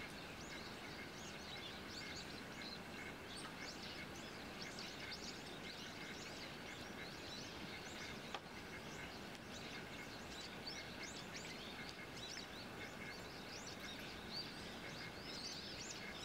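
Many small birds giving short, high chirping calls throughout, over a steady background hiss; one sharp click about eight seconds in.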